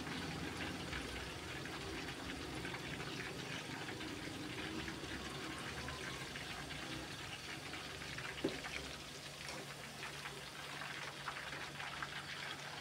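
Chicken pakoras deep-frying in hot oil: steady sizzling and crackling of the bubbling oil, with one light knock about two-thirds of the way through.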